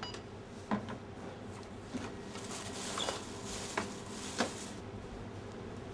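Checkout-counter handling sounds: several light clicks and knocks as goods are picked up and set down on the counter, over a low steady hum.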